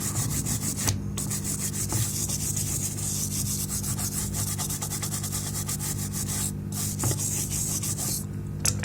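Metal brush scrubbing a PS5 power supply circuit board in rapid back-and-forth strokes, a dry scratchy rasp with short breaks about a second in and again near the end.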